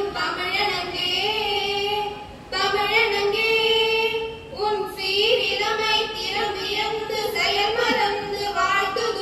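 A few young women singing a song together, in long held notes with short breaks between phrases.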